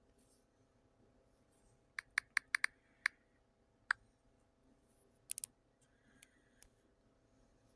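Scattered sharp clicks over faint room tone: a quick run of five about two seconds in, single clicks after it, and a close pair past the five-second mark.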